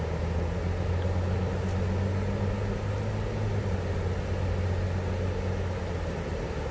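Low, steady engine hum of a passing motor vehicle, fading out near the end, over a constant background rush.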